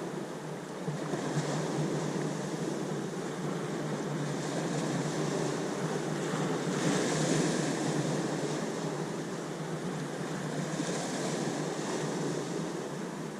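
Ocean surf: waves washing in as a steady rush of water, with the hiss swelling as waves break, most strongly about halfway through and again near the end.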